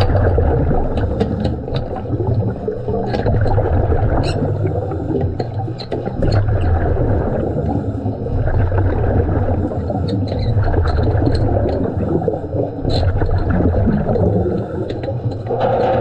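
A diver's breathing underwater: air rushing and exhaust bubbles gurgling, swelling and easing in cycles every three seconds or so. Sharp clicks and taps of gloved hands working on the metal flange come through now and then.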